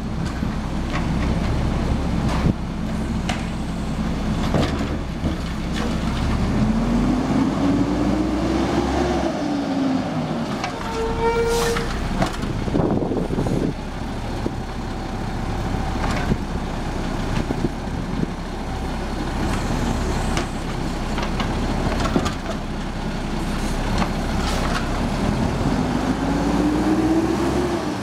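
Diesel engine of a Mack automated side-loader garbage truck running steadily, revving up and back down twice as the hydraulic arm lifts and dumps a recycling cart. Knocks and clanks come from the cart and arm, and a short toot and a sharp air hiss sound about eleven seconds in.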